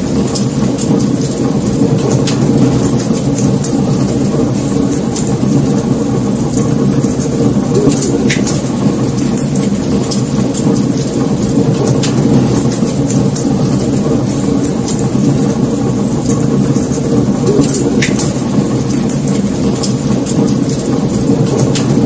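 Wood fire burning with a steady low roar of flames and continual light crackling. A few louder snaps from the burning logs stand out about 2, 8, 12 and 18 seconds in.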